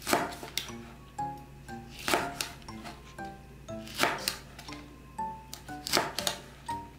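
Chef's knife slicing a green chili pepper on a wooden cutting board, sharp knocks on the board coming in pairs about every two seconds. Light background music of plucked notes plays throughout.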